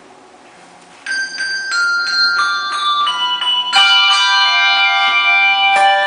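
Handbell choir ringing brass handbells. About a second in, single bell notes begin ringing out one after another, each left to ring on. About four seconds in, several bells strike together in a louder chord.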